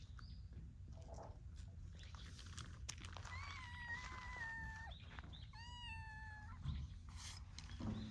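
A cat meowing twice in long, drawn-out calls that sag slightly in pitch. The first comes a little over three seconds in and lasts nearly two seconds; the second is shorter and follows about a second after the first ends. A steady low rumble runs underneath.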